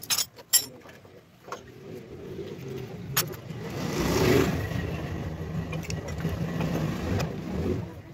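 Metal tools clinking against each other and the engine casing near the start, then a motor vehicle's engine passing by, swelling about four seconds in and fading slowly toward the end.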